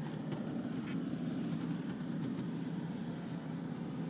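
A car's engine and road noise heard from inside the cabin, a steady low drone.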